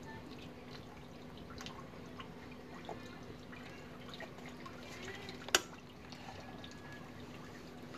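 Light handling sounds as a cloth and a tool are fitted onto a scooter's rear brake caliper bolt: scattered faint clicks and one sharp click about five and a half seconds in, over a faint steady hum.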